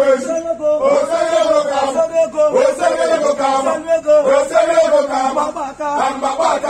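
A group of men chanting together in a continuous sung line.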